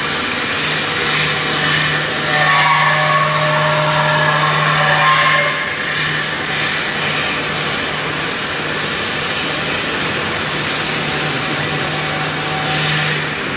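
Five-axis CNC router's spindle running steadily while its cutter mills a foam block, a constant hum under a continuous cutting noise.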